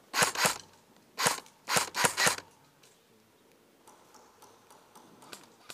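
Airsoft guns firing six sharp single shots: two in quick succession, then four more about a second later.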